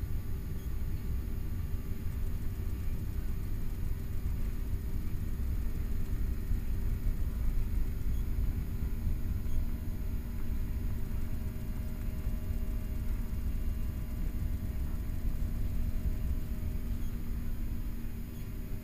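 Airliner cabin noise while the aircraft rolls on the ground: a steady deep rumble of the engines and the wheels on the runway, with a few steady engine tones over it.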